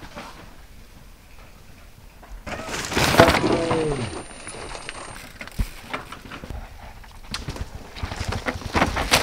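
Mountain bike tyres skidding and scraping through loose, dry dirt as a rider brakes down a steep chute. The loudest stretch, about three seconds in, carries a short falling tone. Later the tyres of another bike crunch and clatter over dirt and rocks, growing louder near the end.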